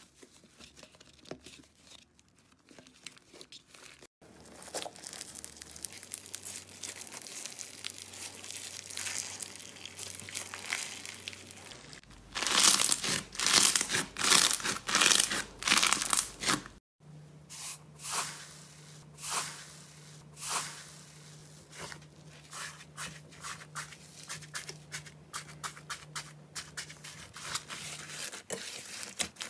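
Hands squishing, tearing and crushing slime. Soft crackling and tearing at first, loud crunching about halfway through as a dry, crackled slime crust is crushed, then rapid small popping clicks as a thick slime is pressed.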